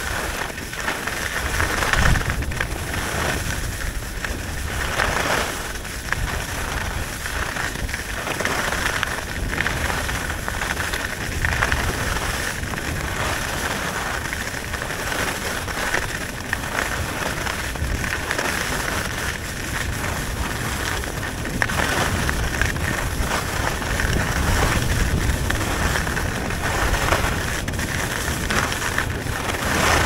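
Skis sliding and carving on groomed snow: a steady scraping hiss that swells and eases with each turn, with wind rumbling on the microphone.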